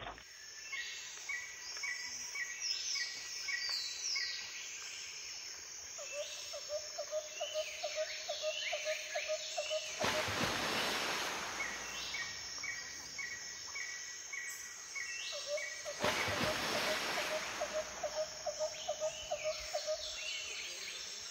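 Birds calling outdoors: many short chirps and sweeping whistles, twice joined by a run of quick, evenly pulsed lower notes lasting a few seconds. Two brief rushes of noise come through, one near the middle and one a few seconds later.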